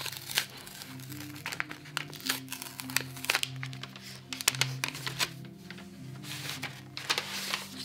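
Protective wrapping being peeled off a Kindle Scribe, crinkling and crackling in irregular bursts, with background music underneath.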